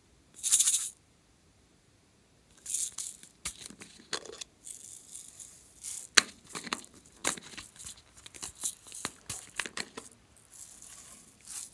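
Plastic sequins pouring and rattling out of two small plastic bottles onto a tray of slime. A short, loud rustling hiss comes about half a second in, then a busy run of small clicks and rattles from about two and a half seconds on.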